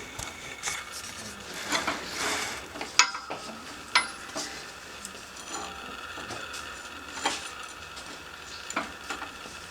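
Metal scraping and clinking as a torn rubber bushing is worked out of an Evo 8 front control arm, with sharp clinks about three and four seconds in.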